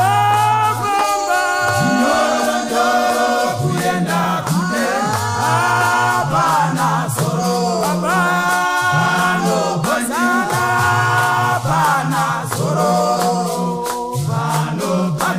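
Men's choir singing a Shona church song in harmony, a deep bass part holding long notes under the higher voices, with shaken rattles keeping time.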